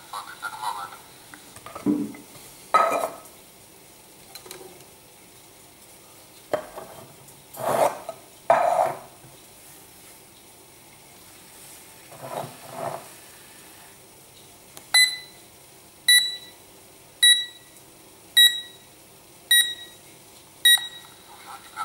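A metal calorimeter can clunks and scrapes as it is moved on the table, then a Lego Mindstorms EV3 brick beeps six times, short beeps at one steady pitch about a second apart.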